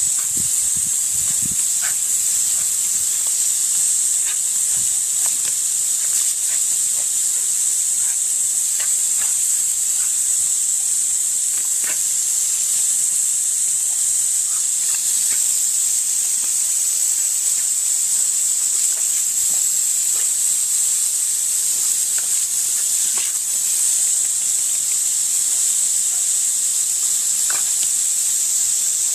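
Garden hose spray nozzle jetting water in a loud, steady hiss, with a few faint short ticks here and there.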